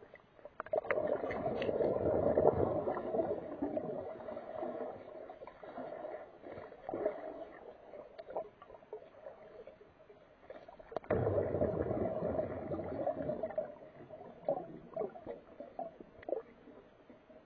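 Water noise picked up by a camera held underwater: two long swells about ten seconds apart, each fading over a few seconds, with scattered clicks between them.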